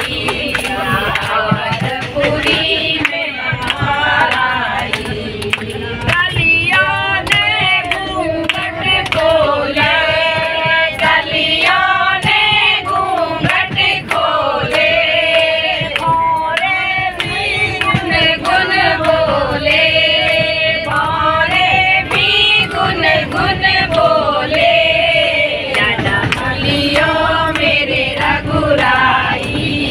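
A group of women singing together in unison, clapping their hands in a steady rhythm.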